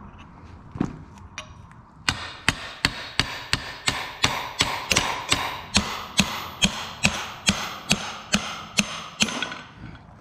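Hammer blows on a cold chisel set against the steel collar on a Jet 700LL aerator motor's stainless steel shaft, driving the collar off the shaft. After a single knock, a steady run of about three ringing metal strikes a second starts about two seconds in and lasts some seven seconds.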